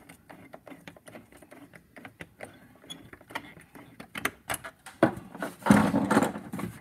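Loosening a hose clamp on a pickup's plastic air intake tube with a hand tool: a run of quick small clicks, then louder rustling and knocking near the end.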